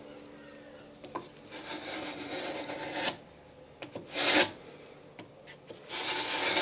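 Hand plane shaving wood from the end of a clinker boat plank, thinning it into the half lap (gerald): a long stroke about one and a half seconds in, a short sharp stroke near four seconds, and another starting near six seconds.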